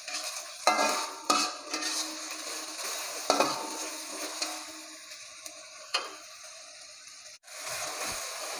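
Metal spatula stirring and scraping chili paste around an aluminium wok over a steady sizzle of the paste frying. The spatula strikes the pan with a sharp clank four times.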